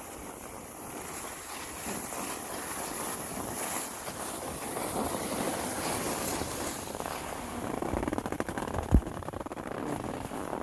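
Wind rushing over the microphone with the hiss and scrape of sliding down packed, tracked snow, growing a little louder partway through. A single sharp knock about nine seconds in.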